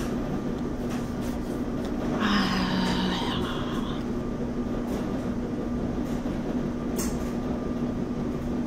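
A steady machine hum with a constant low tone. About two seconds in, a short, higher-pitched sound lasts under two seconds.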